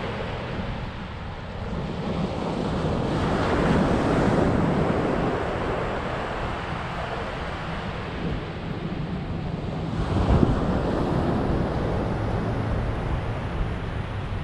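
Ocean surf breaking and washing up a sandy beach, with wind buffeting the microphone. The wash swells louder about three seconds in and again about ten seconds in.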